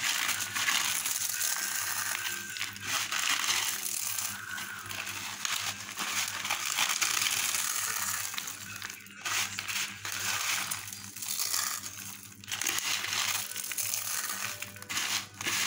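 Corn flakes being crushed into crumbs for a coating, a continuous crunching and crinkling broken by a few short pauses.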